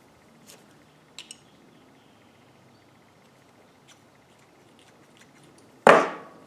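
A few light metallic clicks and taps as a hand pruner's pivot nut and blades are handled and adjusted. Near the end comes a single loud, sharp clack.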